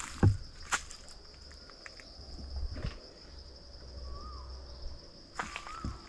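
A steady, high-pitched insect drone, with a short wavering bird whistle about four seconds in and again near the end, and a few crunches of footsteps on dry leaves.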